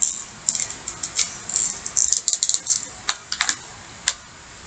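Plastic blister packaging and its cardboard box being handled and pried open, giving a run of irregular crinkling clicks and crackles that die down near the end.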